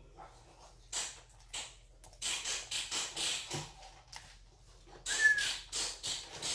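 A person chewing food close to the microphone: an irregular run of wet mouth smacks and clicks, starting about a second in.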